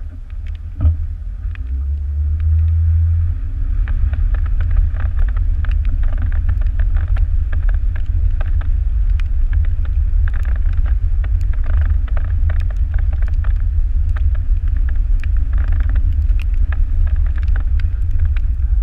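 Jeep driving on a gravel road, heard from a hood-mounted camera. The engine hums under heavy low wind rumble on the microphone, and gravel crackles and ticks under the tyres throughout. There is one sharp knock about a second in.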